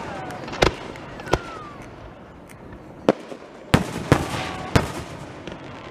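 Aerial fireworks bursting: six sharp bangs spread over about four seconds, three of them close together near the middle.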